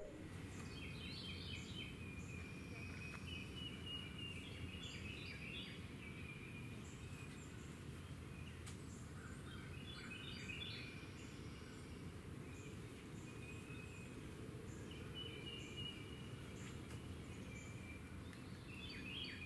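Birds singing in short chirping, trilling phrases that come and go several times, over a steady low outdoor rumble.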